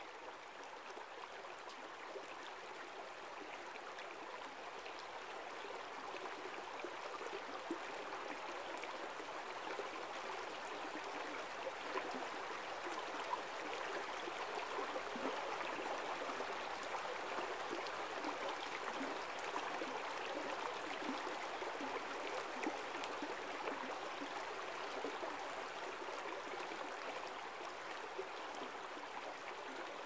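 Stream water flowing over rocks, a steady rushing babble that grows louder toward the middle and eases off a little near the end.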